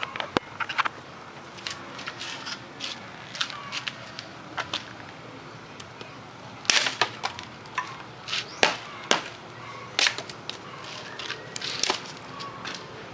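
Bolo machete of truck spring steel chopping into a small tree branch: a series of sharp, irregular strikes, the loudest in the second half.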